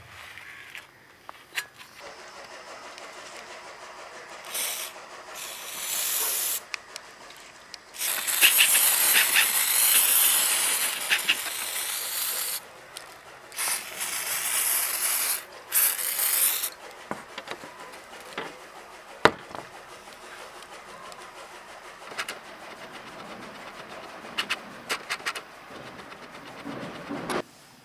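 Aerosol spray can hissing onto a rusty saw blade in several bursts, the longest about four seconds, between quieter handling clicks and rubbing.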